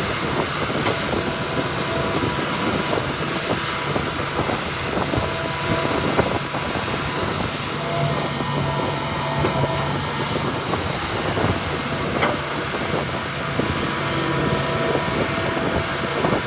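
Heavy diesel earthmoving machinery running steadily, with a low engine hum under a dense mechanical noise. A sharp clank is heard twice, once near the start and once about twelve seconds in.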